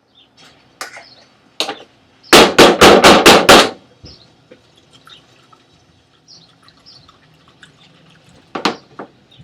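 Six quick, loud knocks at about four a second, a couple of seconds in, with lighter clicks and taps scattered around them and one more sharp knock near the end.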